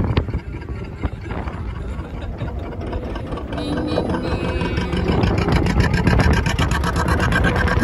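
Small boat's motor running with a steady low rumble that turns into a fast, even chugging in the second half, with a faint steady whine near the end.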